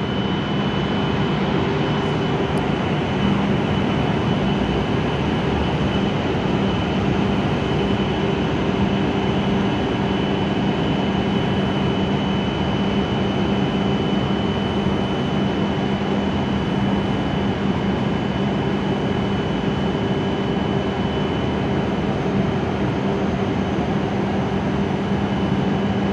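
Steady hum of a W7-series Shinkansen train standing at the platform: its auxiliary equipment and cooling fans run continuously, with a low drone and a thin high whine over it.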